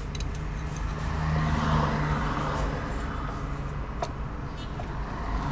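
A car engine running nearby, with a steady hum that swells for a moment a second or two in, and a few sharp metallic tool clicks.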